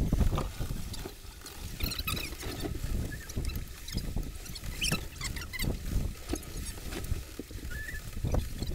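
Wind gusting over the microphone on a sailing yacht at sea, a rumble that rises and falls, with scattered small clicks and scrapes of handling on deck.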